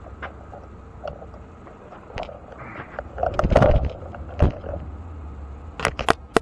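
Frogs croaking now and then over a steady low hum, with a louder bump about three and a half seconds in and a quick run of sharp clicks near the end.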